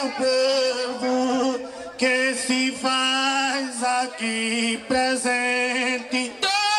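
A man singing unaccompanied, in phrases of held, wavering notes with short breaks between them: a maracatu singer's verse.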